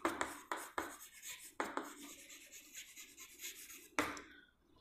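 Chalk writing on a chalkboard: scratchy strokes with sharp taps as the chalk meets the board, one near the start and a strong one about four seconds in.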